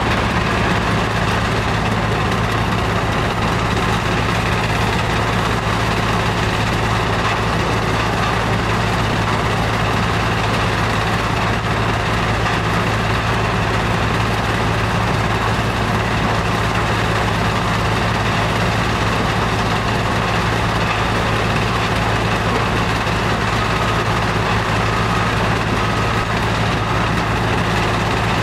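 A Powerscreen Chieftain 1700 mobile screening plant running steadily: its diesel engine hums at an even pitch, and conveyors and screen carry and drop sand and gravel.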